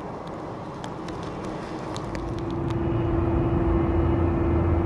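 Twin-engine jet airliner on the runway, its engines giving a steady whine over a low rumble that swells in about two seconds in and stays loud. Before that, a quieter background with scattered sharp clicks.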